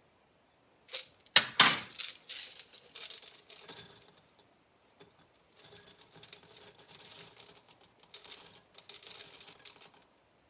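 Suppository base being weighed out: a few sharp knocks about a second in, then small hard pieces clinking and rattling, with a long stretch of dense rattling in the second half.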